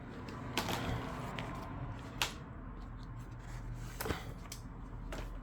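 Bench handling noises from tablet repair work: four or five sharp clicks and taps with light rustling, over a steady low hum.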